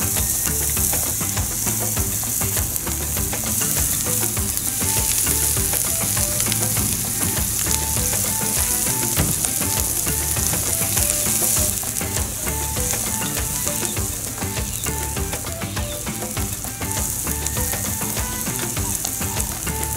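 Chopped vegetables frying in oil in a large wide pan over a gas burner: a steady sizzle with a spatula stirring and scraping. A background music track with repeating bass notes plays along.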